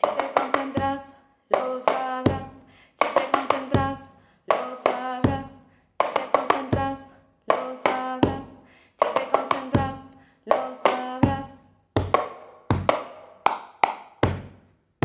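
Cup-game rhythm: a plastic cup knocked and slid on a tabletop together with hand claps, in a pattern that repeats about every one and a half seconds. A woman's voice sings along over most of it, and near the end the knocks and claps go on without the singing.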